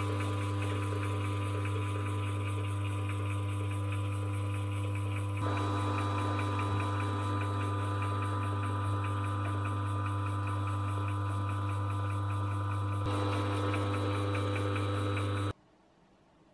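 Small lathe's electric motor running steadily with a strong low hum, the chuck spinning a wooden handle. The sound shifts slightly twice and cuts off suddenly near the end.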